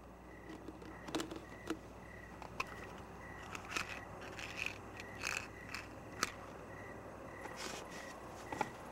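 Faint clicks and taps of a plastic jack-o'-lantern container being opened and handled, scattered through the quiet. Under them runs a faint, even pulsing tone about twice a second.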